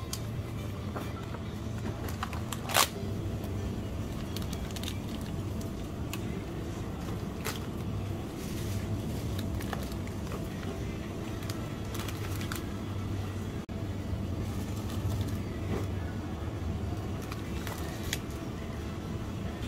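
Supermarket background sound: a steady low hum, broken by scattered clicks and crinkles of plastic grocery packaging being handled. The loudest is a sharp click about three seconds in.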